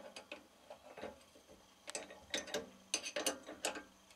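Small metal tools and parts being handled at a mini lathe: a scatter of light metallic clicks and clinks, most of them bunched together in the second half.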